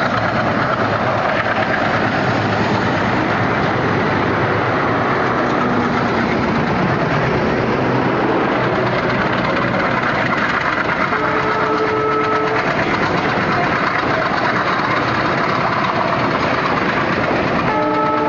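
A train crossing a high railway bridge, a loud, steady rumble and rattle with no let-up. Two brief higher tones sound over it, about eleven seconds in and again near the end.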